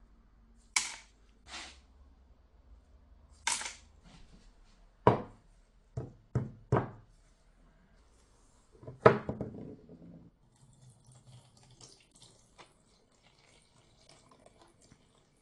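A string of separate knocks and clinks of hard objects being handled, about eight in the first seven seconds, then a longer clatter near the middle. After that come only faint scattered clicks.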